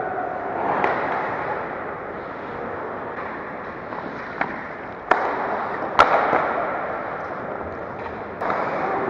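Ice hockey play on an indoor rink: a steady scraping of skates on the ice, broken by a few sharp knocks of sticks and puck, the loudest two about five and six seconds in.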